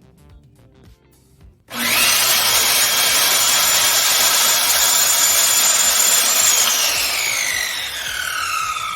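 Electric circular saw started up about two seconds in, its whine rising as the blade comes up to speed, then running loud and steady as it cuts through a wood board. Near the end the trigger is released and the blade winds down with a falling whine.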